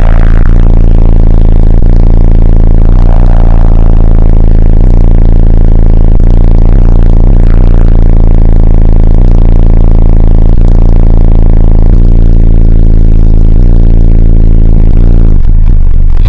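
Competition car audio subwoofers playing a deep, heavily distorted bass tone at full level, overloading the recording, with small shifts in pitch. The bass pressure is strong enough to have cracked the car's windshield.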